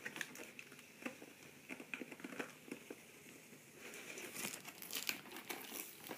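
Crinkling and rustling of a toy's cardboard box and plastic packaging being handled, with scattered light clicks, a little louder after about four seconds.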